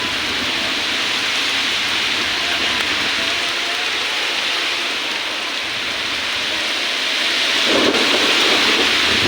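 Heavy monsoon downpour, a steady dense hiss of rain that grows fuller and louder about three-quarters of the way through.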